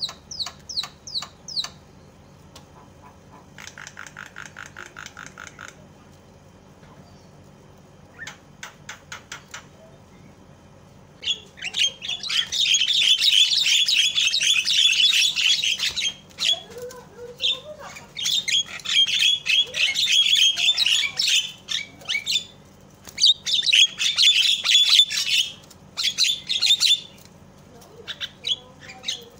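Javan myna calling. First come a few dry clicks and a short buzzy rattle, then loud, harsh, rapid chattering in repeated bouts of a few seconds each.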